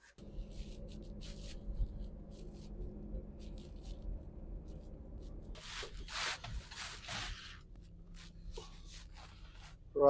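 Vehicle running on the road, heard from inside the cabin: a steady low engine and road hum, with a few brief rustles about six to seven seconds in.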